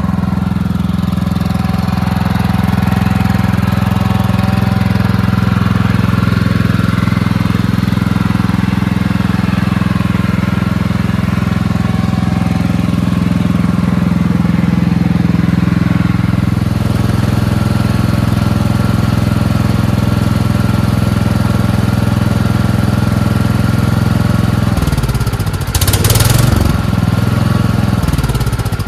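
Power washer's small engine running steadily. About 25 seconds in, its pitch dips and recovers, with a short burst of hiss.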